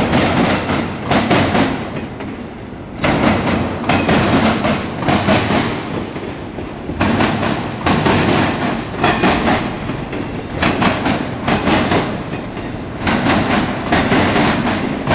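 Freight train's autorack cars rolling past close by, the wheels clattering and clacking in loud bursts every couple of seconds as each car's trucks go by, with steady rumbling between.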